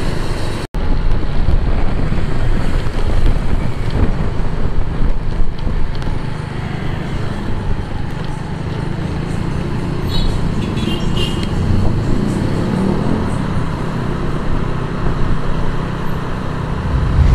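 Motorcycle riding through city traffic: the bike's engine running under steady road and traffic noise, with a brief dropout about a second in and a few short high-pitched sounds around ten seconds in.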